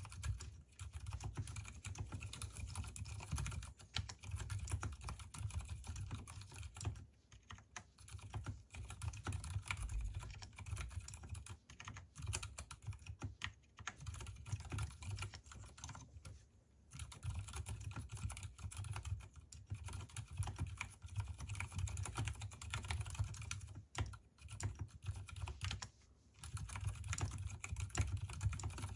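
Mechanical keyboard with Gateron silent brown switches, unlubricated, in an Mstone Groove T case with silicone dampening, typed on in fast, continuous runs of keystrokes. The keystrokes are deep in tone, with a few brief pauses.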